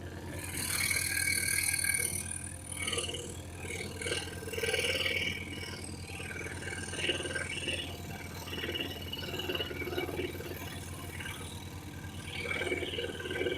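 Excalibur EX21 scroll saw running with a steady hum while its very fine blade cuts through a piece of wood flooring, the rasp of the cut rising and falling unevenly.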